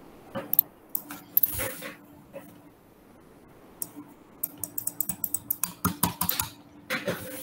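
Quick, irregular clicking and clattering of a computer mouse and keyboard being worked, a few clicks at first, then a dense rapid run in the later part, over a faint steady hum.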